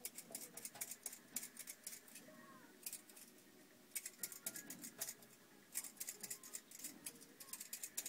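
Crisp crunching of cold, packed snow, coming in short irregular bursts of crackles, with faint distant voices underneath.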